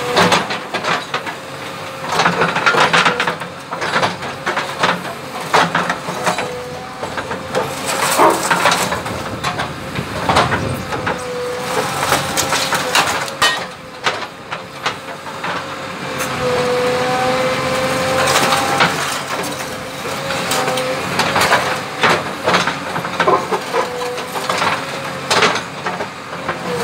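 JCB 3DX Plus backhoe loader's diesel engine running under load while its hydraulic arm works the bucket into soil and rubble around an iron pole, with a steady whine and frequent irregular clanks, scrapes and crunches of the bucket against earth, stones and metal.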